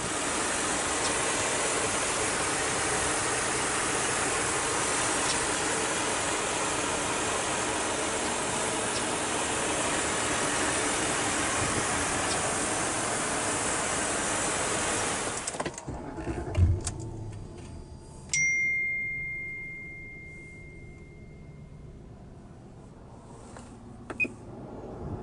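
Jaguar XJ8 L's V8 engine running steadily at idle, heard with the hood open as an even, steady rush. After about fifteen seconds it cuts off abruptly. A few clicks follow, then a single electronic chime that rings out and fades over a couple of seconds.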